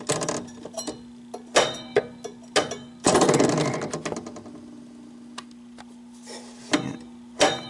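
Handling noises at a metal air variable capacitor: scattered clicks and knocks, with a louder scraping rustle about three seconds in that fades over about a second, over a steady low hum.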